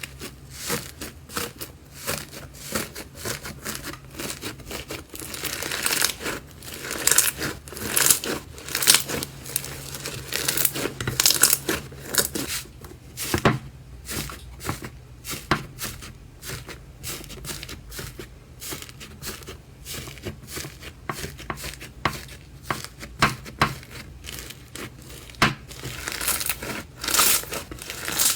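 Hands squeezing, stretching and poking slime, making irregular sticky crackles, pops and tearing sounds, denser at times.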